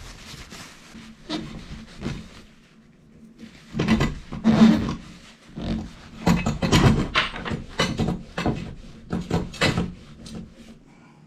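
A run of irregular scraping and rubbing strokes, sparse at first and then quick and loud for several seconds before tailing off, over a faint steady hum.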